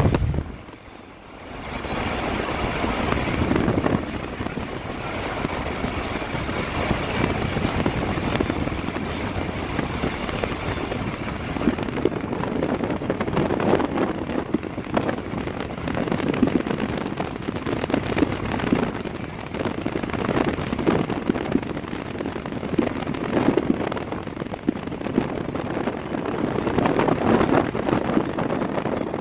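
Wind and road noise of a moving vehicle: a continuous rush that swells and eases irregularly, dipping briefly about a second in.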